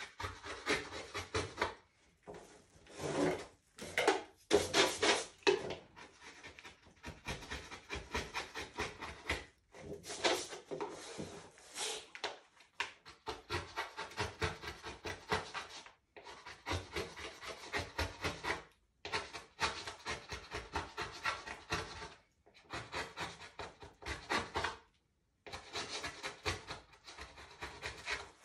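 An eraser scrubbing pencil marks off a bare wooden panel in quick back-and-forth strokes. The strokes come in runs of one to three seconds with short pauses between them, and are loudest about three to five seconds in.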